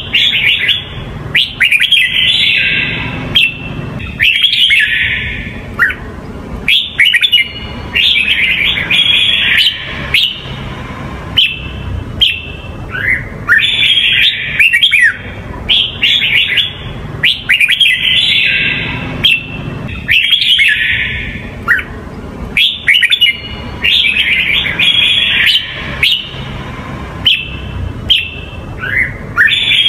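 Red-whiskered bulbul singing: short, bright warbled phrases with quick rising and falling notes, repeated every one to two seconds.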